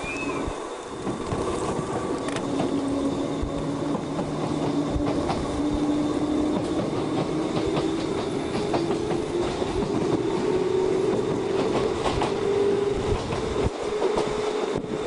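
JR East 185 series electric train running, heard from inside the car: a whine rising slowly in pitch over the steady running noise, with wheels clicking over rail joints.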